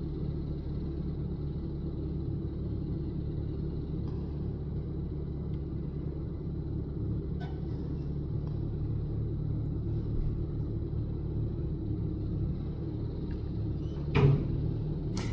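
An engine running steadily with a low, even rumble. A sharp knock comes near the end.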